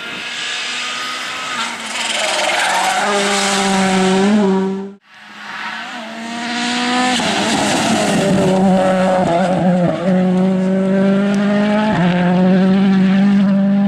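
World Rally Cars' turbocharged 1.6-litre four-cylinder engines running at high revs as the cars pass at speed, the pitch climbing and stepping with each gear change. The sound breaks off abruptly about five seconds in and another car takes over.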